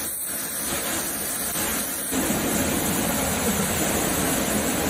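Muddy floodwater rushing fast down a street: a steady rush of noise that gets louder and fuller about two seconds in.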